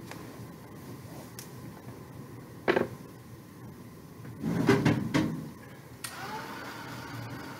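Handheld craft heat tool switched on about six seconds in, its fan motor spinning up with a brief rising whine and then running steadily. Before that, a single knock and a short burst of rustling from handling tissue and materials on the table.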